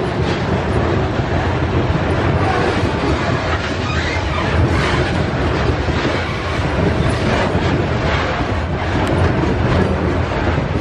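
Loaded freight train's hopper wagons rolling past: a loud, steady rumble of steel wheels on rail with repeated clacks of the wheels over the track.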